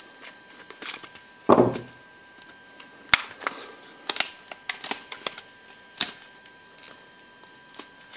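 Hard plastic blister packaging of a memory card being pried and broken open: a heavy thump about a second and a half in, then a string of sharp plastic cracks and snaps.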